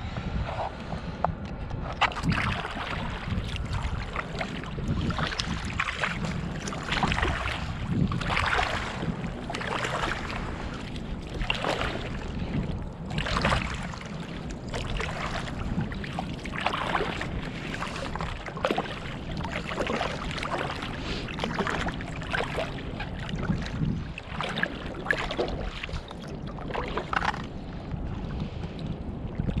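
Water splashing and lapping against a floating soft-top surfboard in irregular splashes about every second or two, over a steady low rumble of wind on the microphone.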